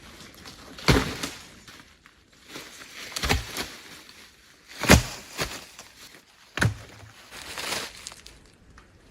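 Sharp knocks of wood being worked, four loud ones a second or two apart, with crunching and rustling in between.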